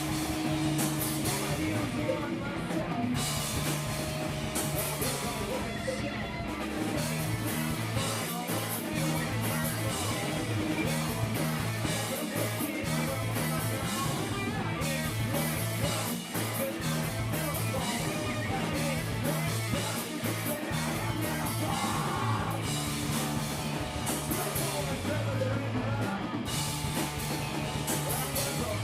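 Live rock band playing: electric guitars, bass and drum kit, with singing.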